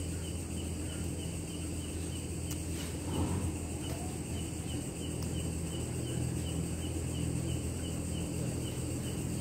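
Night insects chirping in a steady, evenly pulsing high trill, over a constant low hum.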